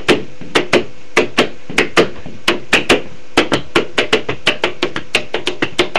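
Fingers tapping and drumming on a hard surface in a quick, uneven rhythm, played as home-made music, getting faster toward the end.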